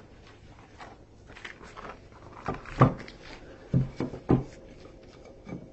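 Packaging being opened and handled: rustling with several sharp knocks, loudest about halfway through.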